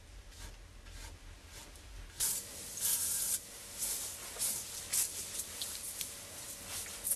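A series of short hissing strokes as a brown toupee is groomed by hand: brushed or sprayed over, about two strokes a second, starting about two seconds in.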